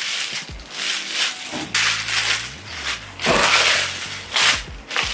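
Clear plastic wrapping crinkling and rustling in several irregular bursts as it is pulled off a folded camp chair.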